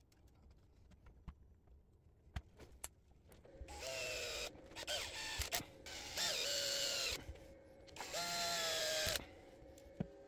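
Small electric screwdriver driving screws into a 3D-printed plastic speaker plate, running in several short bursts with its motor whine sagging and rising as each screw seats. Light clicks and taps of parts being handled come before it.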